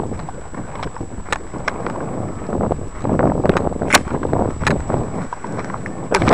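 Footsteps crunching along a dirt trail with wind buffeting the microphone, broken by a few sharp clicks.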